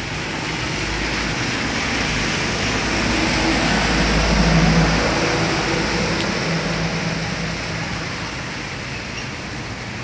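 Steady hiss of rain, with a truck driving past on the wet road: engine rumble and tyre noise swell to a peak about four to five seconds in, then fade.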